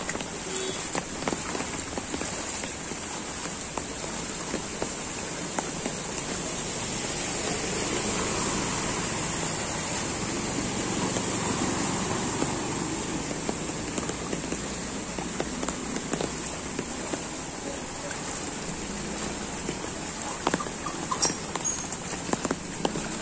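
Heavy rain falling on a flooded alley, a steady hiss, with footsteps sloshing through shallow floodwater. Around the middle, a motor scooter rides through the flood, and its engine and splashing swell and then fade.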